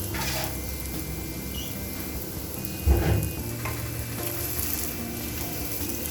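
Aloo paratha frying in a little oil on a hot pan, a steady sizzle, with a single sharp knock about three seconds in.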